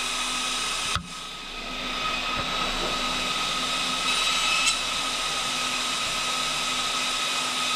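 A four-fan pack of small electric cooling fans running at full speed with a steady high whine and a hiss of moving air. About a second in there is a click and the sound briefly dips before rising back.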